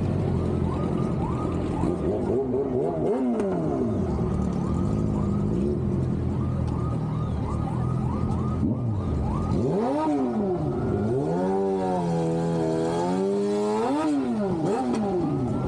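Street traffic with vehicle engines running; a fast repeating rising chirp sounds through the first half, and an engine revs up and down several times in the second half.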